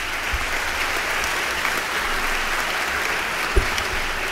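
Audience applauding steadily, with one short low thump about three and a half seconds in.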